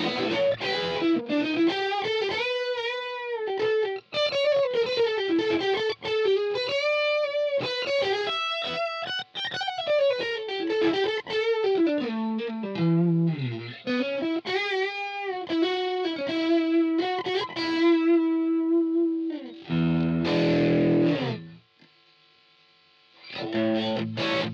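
Squier Affinity Stratocaster electric guitar played with distortion through a Line 6 POD HD500: a single-note lead line with string bends and vibrato, ending on a long held note. Near the end come chords, broken by a brief stop.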